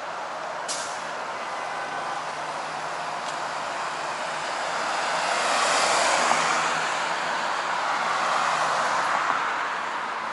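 Road traffic: cars passing on the street, a rush of tyre and engine noise that swells about halfway through, rises again a little later, then fades.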